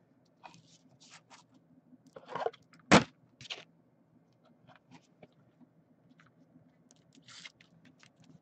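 Plastic trading-card sleeve and rigid toploader being handled: soft rustles and scrapes of plastic, with a sharp click about three seconds in.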